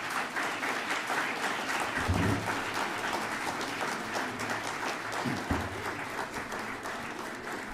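Audience applauding: a dense, steady round of clapping from a large crowd, easing slightly near the end.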